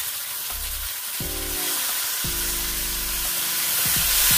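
Beaten curd sizzling in a hot steel pan of oil-fried onions and spices as it is stirred with a spatula, the sizzle swelling louder near the end.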